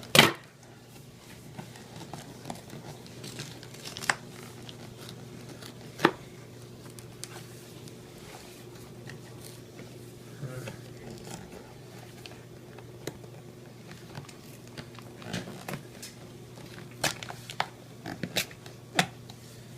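Cardboard and plastic packaging of an oyster mushroom grow kit being poked through and torn open by hand: a sharp snap at the start, then scattered clicks, crinkling and tearing, with a cluster of clicks near the end. A faint steady hum runs underneath.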